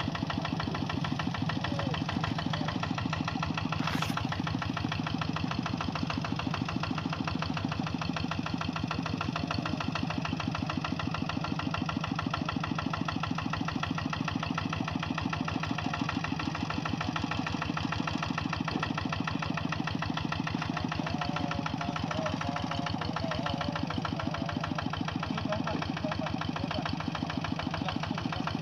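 Kubota G1000 hand tractor's diesel engine running steadily at a constant speed, with a brief sharp click about four seconds in.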